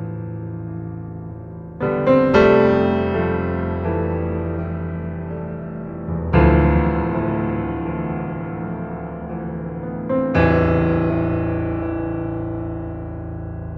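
Background piano music: slow sustained chords, a new one struck about every four seconds and left to fade.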